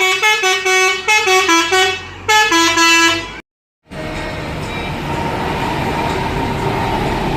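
Telolet truck horn playing a quick tune of short stepped notes, with a brief break about two seconds in. The sound cuts out for half a second, then a steady vehicle noise runs on.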